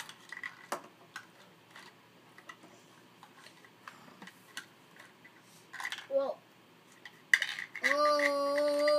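Small plastic toy figurines and a plastic toy sleigh tapping and clicking on a wooden table in light, scattered knocks. Near the end a child's voice comes in, holding one long steady note, the loudest sound here.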